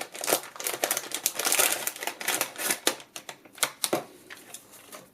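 Plastic packaging crinkling and rustling, with small clicks and taps, as the light-strip kit's bag and box are handled; busy for about three seconds, then a few scattered clicks.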